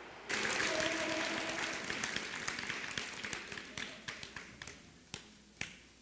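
Audience applauding. It starts suddenly, dense at first, then dies away to a few scattered claps near the end.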